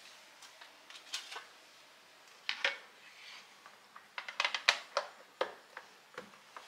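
Kitchenware being handled and set down: scattered light knocks and taps, with a quick run of clacks about two-thirds of the way through as a plastic cutting board is laid on the wooden counter and pressed flat.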